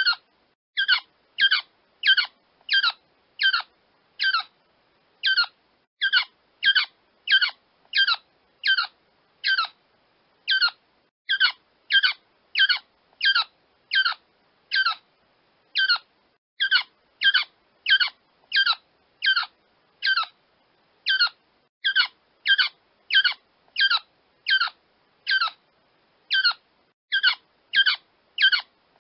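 A quail crowing: short, sharp high calls repeated about twice a second in runs, with brief pauses between the runs.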